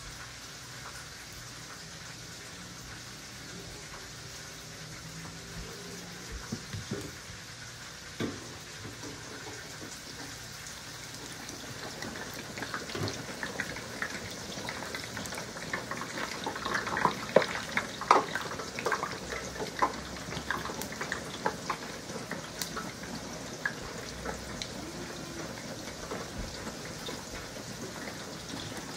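Battered chicken tenders deep-frying in hot oil in a Presto electric deep fryer. After a few knocks, the oil starts bubbling and crackling about twelve seconds in. It is loudest with sharp pops a few seconds later, then keeps sizzling.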